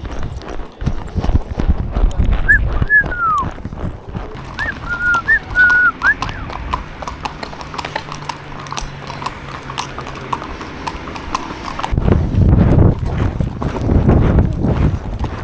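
Horses' hooves beating on a forest trail, an irregular run of knocks. A few short high whistled notes rise and fall a few seconds in, and from about twelve seconds in the hoofbeats turn much louder and heavier.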